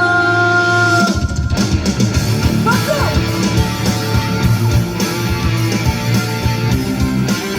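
Live pop-rock band music: a held sung note ends about a second in and the full band comes in with guitar and a steady drum beat.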